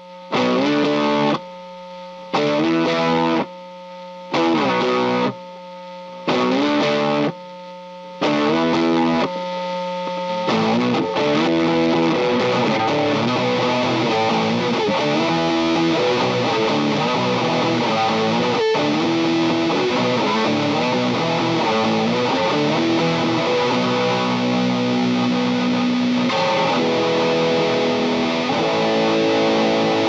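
Distorted electric guitar from a Fender Coronado II through a Greer Gorilla Warfare MKII, a RAT-style distortion/fuzz pedal built around an LM308 chip, into a Strymon Iridium amp simulator. For about the first ten seconds it plays short chords, each cut off sharply, about one every two seconds. After that it plays continuously.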